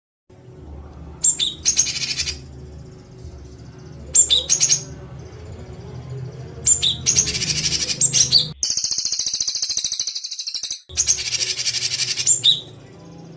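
A songbird's harsh rattling call, the 'tembakan kasar' played as a tutor track for songbirds to copy. It repeats in short bursts with gaps between them, and a longer, higher buzzing rattle of about two seconds comes just past the middle. A faint low steady hum runs underneath.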